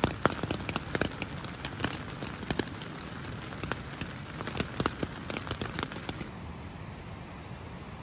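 Raindrops pattering on the nylon rain fly of an MSR backpacking tent, heard from inside: irregular sharp taps over a steady hiss of rain. About six seconds in the taps stop and only a soft, steady hiss remains.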